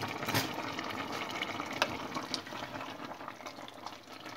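A pot of potato and mushroom stew simmering with a wet bubbling, while a wooden spatula stirs through the potatoes. A sharp knock about half a second in, with a few lighter clicks after it.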